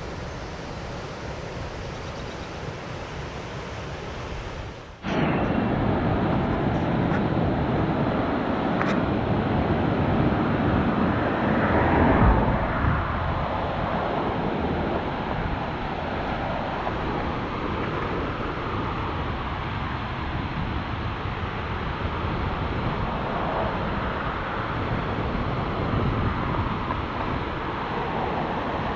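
Steady rushing of a creek's whitewater rapids in flood, the muddy water running high. About five seconds in it jumps suddenly louder and closer.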